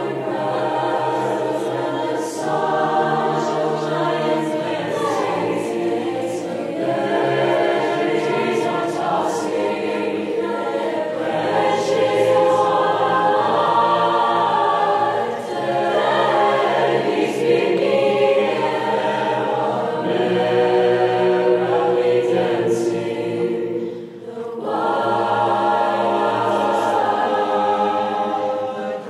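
Six-part mixed choir singing unaccompanied. The sopranos repeat rhythmic 'na na neh' syllables while the other voices sing 'bare trees are tossing their branches on high', then all move to 'white clouds … across the blue sky'. There is a brief break for breath about five seconds before the end.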